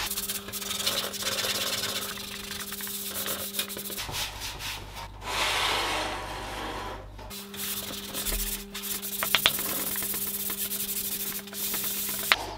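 Microfiber cloth rubbed in wiping strokes over the black outer panels of a PC tower case, with a few sharp clicks in the second half.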